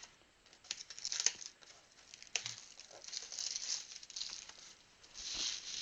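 Trading-card pack wrappers being crinkled and torn open and the cards handled, in a string of short, high-pitched crackling rustles.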